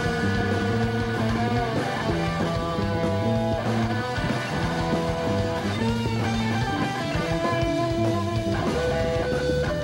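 Live rock band playing, led by electric guitars over bass and drums, with held guitar notes changing every second or so.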